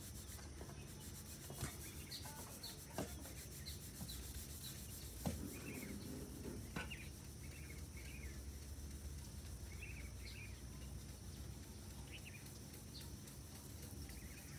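Foam applicator sponge rubbing scratch-remover compound over a car door's painted panel: a faint, steady rubbing with a few light clicks in the first seven seconds. Birds chirp faintly now and then.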